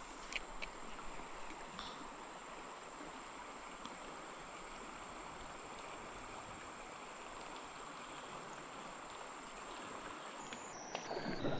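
River water flowing steadily, an even hiss, with a faint steady high-pitched tone over it. Near the end, louder irregular noises start.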